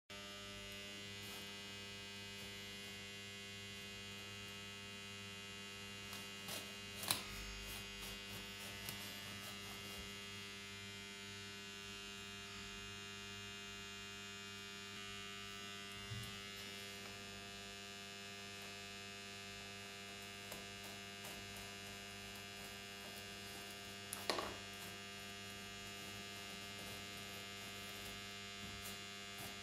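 Steady electrical mains hum, with a few brief clicks and knocks.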